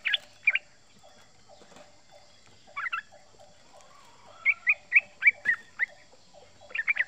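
Male yellow-vented bulbul (trucukan) calling in quick bubbly chirps: a short burst at the start, another brief burst about three seconds in, a run of separate notes from about four and a half seconds, then a fast rolling chatter beginning near the end.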